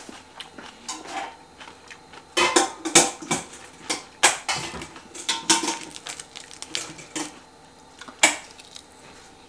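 Dishes and cutlery clinking and clattering: a run of sharp clinks with short ringing, busiest and loudest in the first half, then a few scattered knocks.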